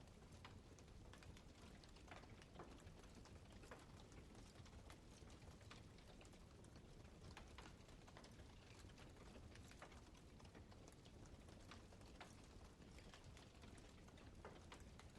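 Campfire crackling faintly: irregular sharp pops and snaps of burning wood over a steady low hiss.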